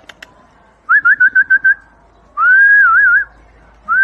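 A person whistling to catch a dog's attention: a quick run of about six short chirps, then a long whistle that rises and ends in three quick warbles, with the long whistle starting again near the end.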